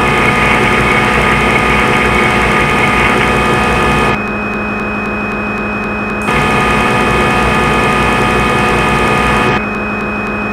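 CNC milling machine running. A steady electrical hum underlies a louder motor whine that cuts in and out abruptly: it runs for about four seconds, pauses, runs for about three more, and comes on again briefly near the end, as the machine's motors start and stop between moves.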